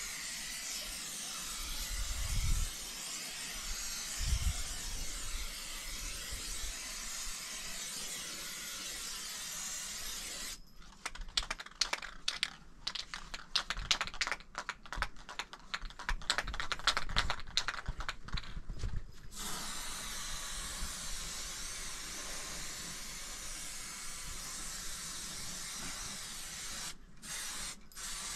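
Aerosol spray-paint can hissing steadily as red paint is sprayed onto the hut's planks and rock. About a third of the way in the hiss stops for some eight seconds of fast clicking rattles, the can being shaken, then the spraying resumes, breaking off twice briefly near the end.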